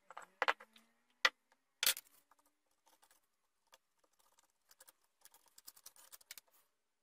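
Small objects handled on a wooden workbench: a few sharp knocks and clicks in the first two seconds, then a run of light, rapid scratchy ticks from hands working on a wooden plate.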